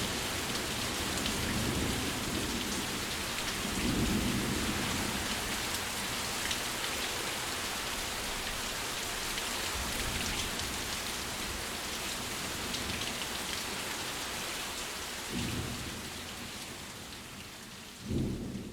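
Steady rain hiss with low rumbles of thunder, one about four seconds in and two more near the end. The rain gradually fades away over the last few seconds.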